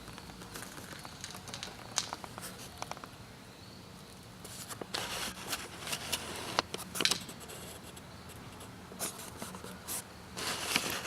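Light, irregular clicks, taps and rustles of handling noise, with a few short bursts of scuffing about halfway through and again near the end; no engine running.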